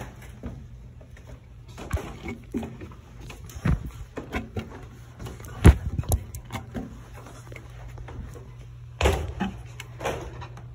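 Irregular knocks and thumps of someone climbing a short ladder with a phone in hand, the loudest about halfway through, over a steady low hum.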